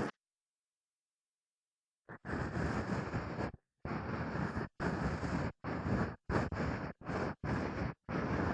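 Ear-cleaning sounds, an ear pick scraping and rubbing in the ear. About two seconds of dead silence, then a run of scratchy strokes, each half a second to a second and a half long, with brief silent gaps between them.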